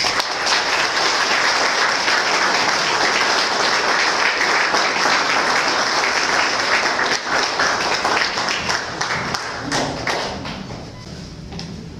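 Audience applauding, dying down about ten seconds in.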